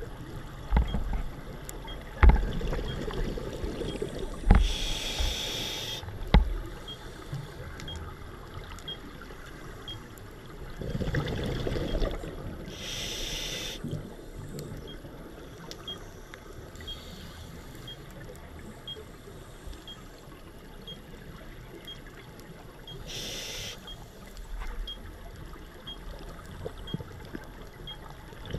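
Scuba diver breathing on a regulator, heard underwater: three short hissing inhalations several seconds apart, with a low bubbling rumble of exhaled air between the first two. A few sharp knocks come in the first several seconds.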